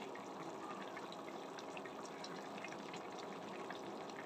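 Egg curry broth with gram-flour dumplings simmering uncovered in a pan: a steady bubbling with many small scattered pops.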